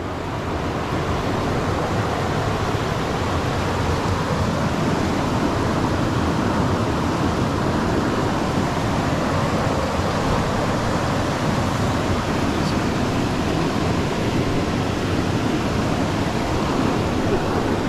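Fast, murky river water rushing over rocks and rapids: a steady, even rushing noise.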